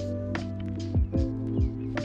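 Background music with a steady beat: held notes over a bass line, with kick drum and hi-hat hits.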